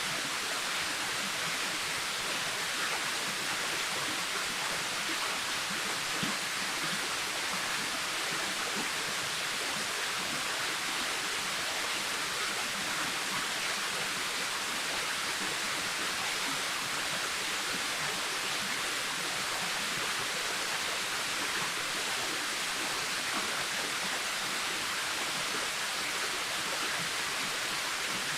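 Waterfall: falling water in a steady, unbroken rush with a high hiss.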